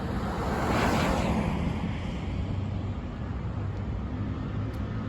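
A road vehicle passing close by: a rush of tyre and road noise swells and fades in the first two seconds, over a steady low engine hum.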